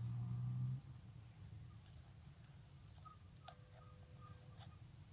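Insects chirping in the orchard: a steady high trill, with a second chirp pulsing about twice a second.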